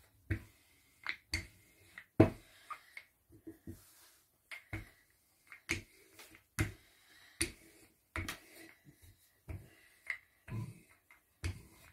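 Wooden rolling pin rolling out pie dough on a floured silicone mat, with short clicks and knocks about once a second as it is pushed back and forth.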